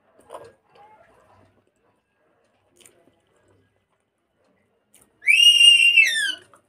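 A loud, high-pitched whistling tone near the end, held steady for about a second and then sliding down in pitch before it stops. Faint mouth sounds of eating come in the first second or so.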